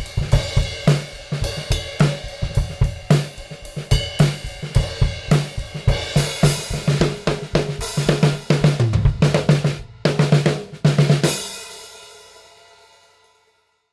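Drum kit playing a funk groove of kick, snare and hi-hat, going into a busier fill with cymbals and toms in the second half. The last hit, about eleven seconds in, rings out and fades away.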